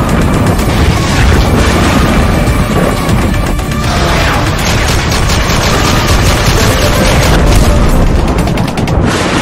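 Loud cinematic intro music with deep booms and rapid bursts of gunfire sound effects.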